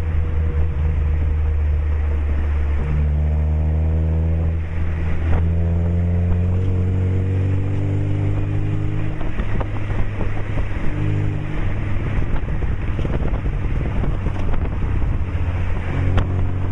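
Lada 2107's four-cylinder engine heard at the tailpipe through an aftermarket 50 mm sport exhaust and sport muffler while driving. The note rises in pitch as the car accelerates, dips about five seconds in at a gear change, then rises again. Underneath is a steady rush of wind and road noise.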